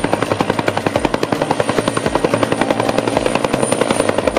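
Helicopter in flight with a two-bladed main rotor: a rapid, even rotor chop with a thin, high, steady whine above it.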